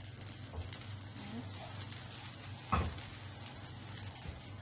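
Butter sizzling as it melts in a hot nonstick frying pan, with one short knock a little past halfway.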